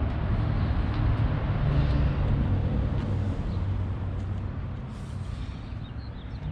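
A motor vehicle's engine running with a steady low rumble, easing off slightly in the second half.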